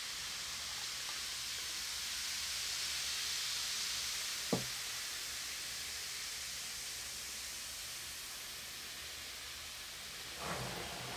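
Baking soda and vinegar fizzing inside a toy volcano as the vinegar goes in and foam overflows: a steady hiss that swells over the first few seconds and slowly dies down. One sharp knock about halfway through, and a soft bump near the end.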